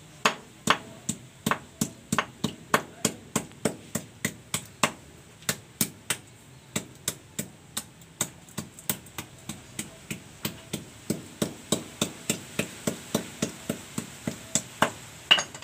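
A knife chopping eel on a wooden board: a long run of sharp, even strikes, about three a second, with one louder strike near the end.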